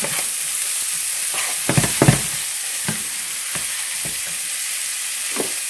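Chopped onion, yellow mini peppers and bacon sizzling steadily in a frying pan as a wooden spoon stirs and scrapes through them, with a few louder scrapes about two seconds in.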